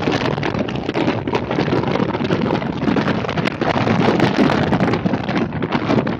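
Wind buffeting the microphone of a camera on a moving motorcycle: a loud, fluctuating rush of wind noise at road speed, with the ride's road and engine noise mixed in beneath.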